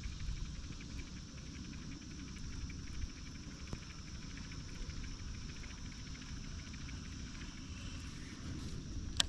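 Steady high-pitched insect drone with a faint fine ticking, over a low, uneven rumble, and a short click near the end.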